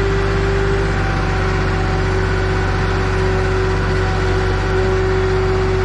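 Heavy diesel engine idling steadily, a low drone with a faint constant whine over it.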